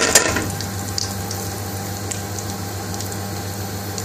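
Curry powder frying in hot vegetable oil in an aluminium pan: a steady sizzle with small scattered crackles as the oil bubbles around the spice.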